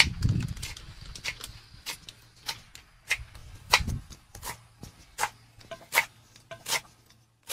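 Footsteps: sharp clicks of steps on hard ground, irregular at first and then settling into an even pace of about one step every three-quarters of a second. Two low thumps come near the start and about four seconds in.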